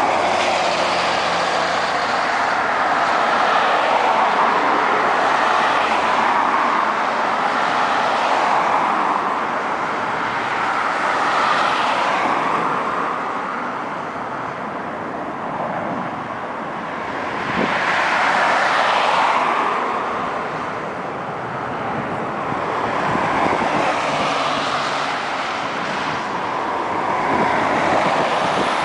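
Road traffic: vehicles passing one after another, the rushing sound swelling and fading every few seconds.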